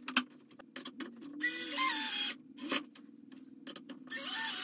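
Cordless drill/driver driving screws into the plastic panels of a storage crate in two short runs, about a second each, the first around a second and a half in and the second near the end, the motor whining. The driver is on its lowest speed with the clutch set low so as not to crack the plastic. A few light handling clicks come before the first run.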